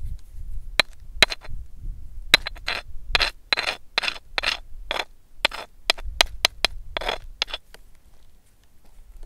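Fingers scraping and tapping on a rough rock surface: a quick, irregular run of short gritty scrapes and clicks that stops shortly before the end, over a low rumble of wind on the microphone.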